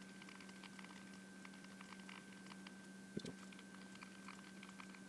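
Faint, irregular clicking of a Fire TV Stick remote's buttons being pressed over and over to type on the on-screen keyboard, over a steady low hum. There is one brief low thump about three seconds in.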